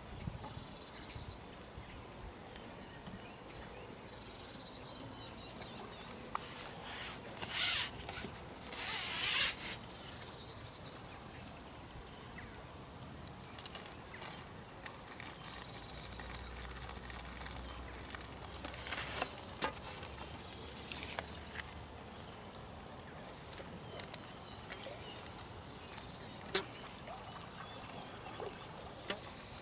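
Quiet outdoor ambience with a faint steady background hiss, broken by a few short rustles about a quarter of the way in and again past the middle, and a couple of sharp clicks near the end.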